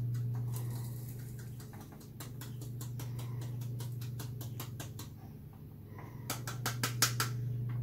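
Quick light taps of a spice grinder's cup on a plastic funnel, knocking ground celery powder down into a spice jar, with a few sharper taps near the end.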